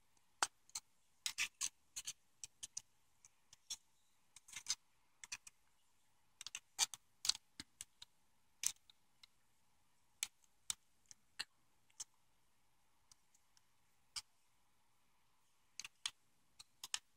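Scattered small plastic clicks and taps as the connector body of a GM E38 PCM wiring harness is pried at and handled, coming in short clusters of two or three with pauses between.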